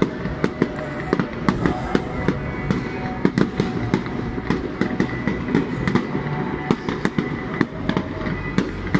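Fireworks display going off close by: a dense barrage of sharp cracks and bangs, several a second at irregular intervals, over a steady low rumble.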